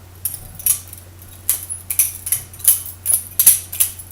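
Butterfly knife (balisong) being flipped by hand: its metal handles clack against each other and the blade in quick, irregular clicks, some in rapid pairs.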